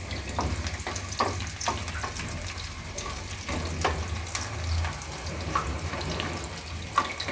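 Onion, garlic and carrot sticks sizzling in hot oil in a non-stick frying pan, stirred with a wooden spatula that knocks and scrapes against the pan every half second or so. A low steady hum runs underneath.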